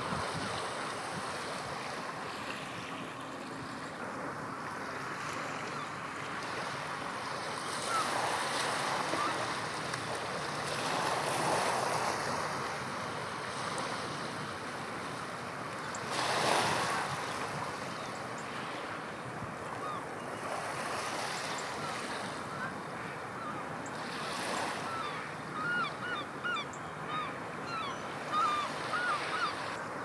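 Rough sea surging and breaking in a strong wind, rising and falling in several swells, with wind buffeting the microphone. Near the end a run of short, high bird calls sounds over the surf.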